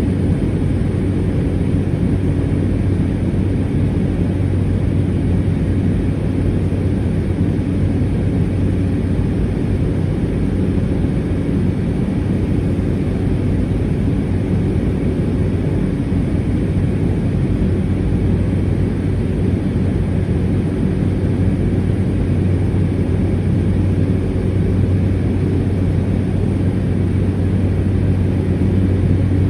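Cessna 208 Caravan's single Pratt & Whitney PT6A turboprop engine and propeller running steadily: a loud, even drone with a strong low hum that does not change.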